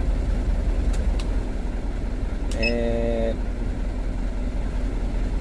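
Steady low rumble of the truck running with its AC on. Button clicks from a digital AC thermostat come about a second in, and a short electronic beep about two and a half seconds in as the thermostat's settings are stepped through. A brief hum of a voice follows the beep.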